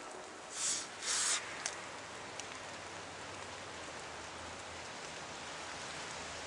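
Steady outdoor hiss, like falling or running water, with a few faint ticks. Two short, louder rushes of hiss come about half a second and a second in.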